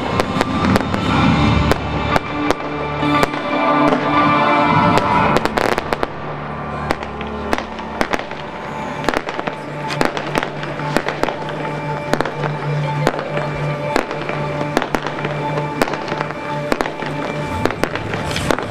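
Fireworks going off over music: repeated sharp bangs and crackles, heavier for the first several seconds, then lighter, rapid pops and cracks from crackling stars, with the show's music playing steadily underneath.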